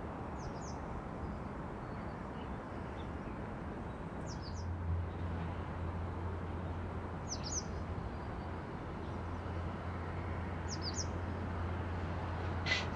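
Airport apron ambience: a steady distant rumble, joined about four seconds in by a low steady hum. Over it a small bird gives short, high double chirps about every three seconds, and there is a sharp tick near the end.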